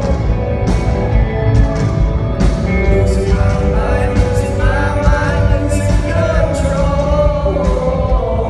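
A live rock band playing with a male lead voice singing over it, drums and cymbal hits recurring throughout.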